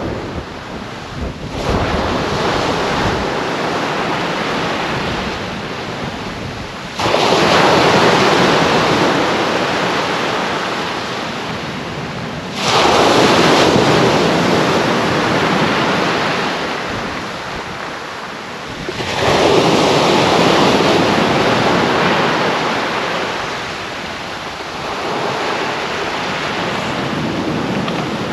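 Small waves breaking on the beach. Three louder surges come about six seconds apart, each washing up and fading away, and wind buffets the microphone now and then.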